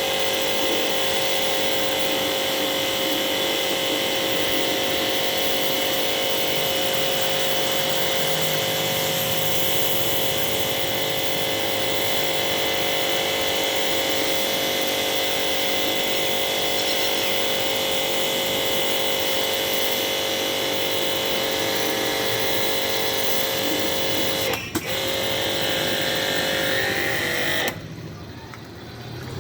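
A machine running steadily with a constant pitched hum and high tones over a noisy hiss. It dips for a moment late on and then cuts off shortly before the end.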